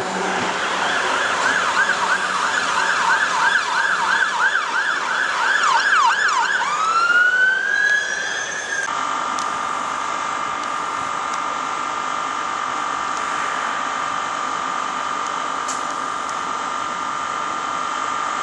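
Emergency vehicle siren yelping, sweeping up and down about three times a second, then switching into a long rising wail that levels off. It cuts off abruptly about nine seconds in, leaving a steady high-pitched tone for the rest.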